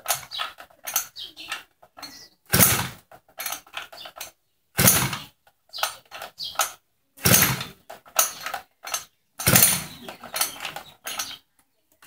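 A hand tool worked against a metal part in slow, regular strokes: four harsh scraping strokes about two and a half seconds apart, with lighter metallic clicks and clinks between them.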